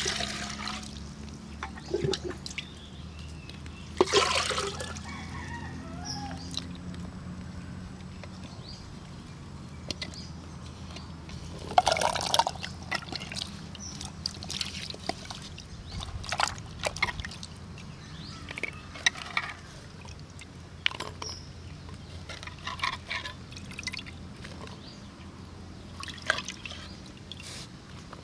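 Water poured from a small clay pot into a clay pot, then hands stirring and splashing tomatoes and shallots in the water as they are washed, with irregular splashes and drips. The loudest splashes come about four and twelve seconds in.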